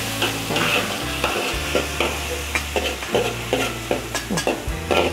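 Metal spatula scraping and tapping irregularly against a wok, stirring diced peppers and onion through a sizzling sweet-and-sour sauce.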